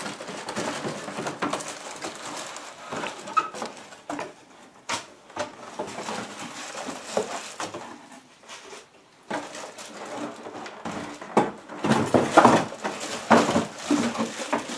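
Cardboard packaging and plastic wrapping rustling and scraping as parts are pulled out of a box, with a few light knocks and louder bursts of rustling about twelve seconds in.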